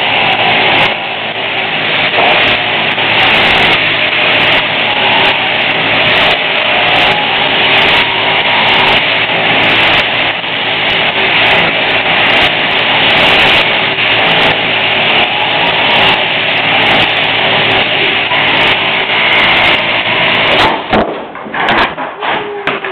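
Machine sheep-shearing handpiece running steadily as it cuts the fleece off a sheep. It stops about 20 seconds in, followed by a few knocks and scuffs as the handpiece is set down and the shorn sheep is let up.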